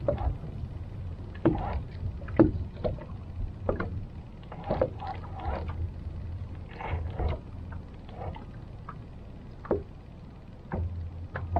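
Water lapping against a small fishing boat's hull, with irregular small knocks and splashes over a steady low hum.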